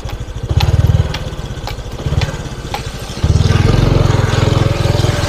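Moped engine running while being ridden, opened up briefly about half a second in and again around two seconds, then held at higher throttle from about three seconds in.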